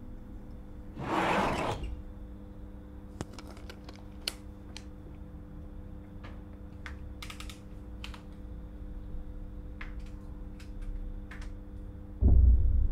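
Small, sharp clicks and taps scattered every second or so over a steady low electrical hum, after a short swish about a second in; a heavy low thump near the end is the loudest sound.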